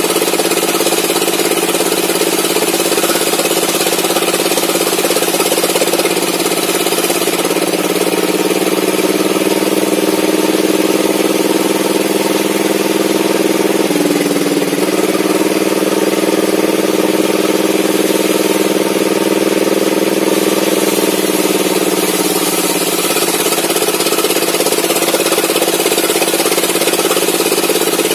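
Homemade engine-driven circular table saw running continuously while a mahogany board is ripped lengthwise through it. Its note shifts and strengthens from about seven seconds in to about twenty-three seconds in, with a brief break near the middle, as the blade works under load.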